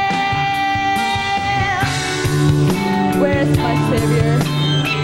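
Live rock band with a female lead vocal: a long held note in the first two seconds, then drums, bass and electric guitar carry on.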